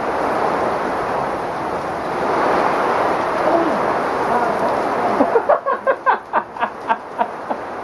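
Heavy rain falling steadily as an even hiss. A little over five seconds in, the hiss thins and a quick run of about a dozen short, high-pitched sounds follows, five or six a second.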